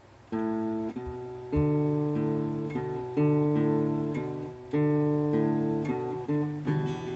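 Acoustic guitar playing an instrumental intro. Chords are struck and left to ring, with a new chord coming in about every second and a half.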